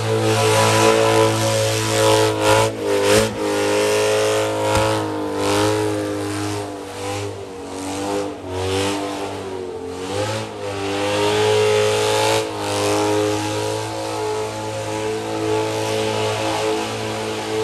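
Supercharged 6.2-litre Hemi V8 of a modified Dodge Challenger Hellcat held at high revs through a burnout, the rear tyres spinning on wet pavement. The revs sag briefly a few times and climb straight back.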